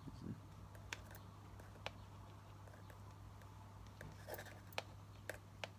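Faint handling noises: a scattering of small clicks and light scratches, a handful of them close together about four to five and a half seconds in, over a steady low hum.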